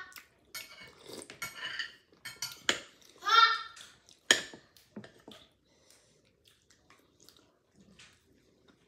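Metal spoon clinking and scraping against a ceramic soup bowl during a meal, with a few sharp clinks in the first half and only faint ticks after. A short high voice sound about three and a half seconds in.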